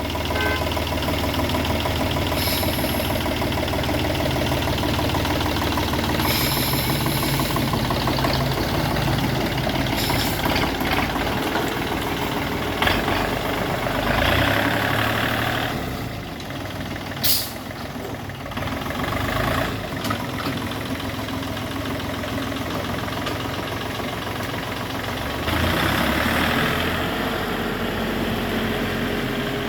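Heavy machinery engine running steadily, with a few sharp clanks and two spells of hissing noise, about halfway through and near the end.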